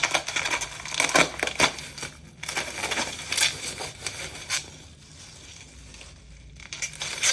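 Packaging crinkling and rustling as a wrapped item is torn open and unwrapped by hand, in irregular bursts that ease off for a couple of seconds before picking up again near the end.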